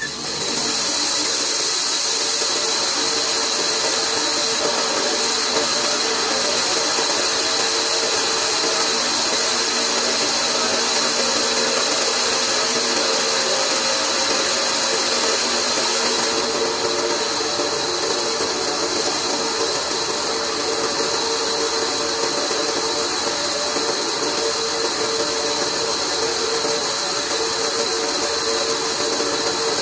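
Large vertical bandsaw running steadily with no wood being cut: a constant machine hum and whir with a strong steady hiss.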